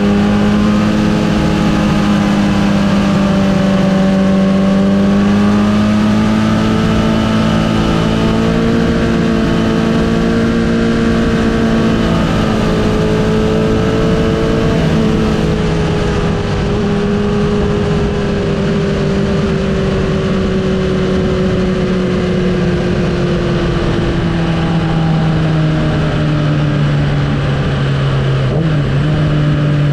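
Sport motorcycle engine, heard from on the bike, running steadily at low revs at a slow pace, with wind rushing past. Its pitch sinks gradually over the last ten seconds as the bike slows.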